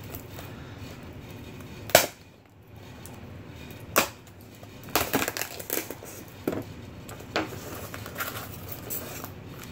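Unpacking a cardboard shipping box: two sharp snaps about two seconds apart, then a run of crackling and rustling as a styrofoam insert is worked out of the box.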